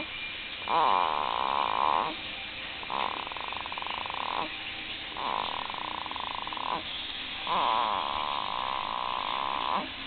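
A two-week-old baby snoring in its sleep: four buzzy snores, each one to two seconds long, coming about every two and a half seconds, the last one the longest.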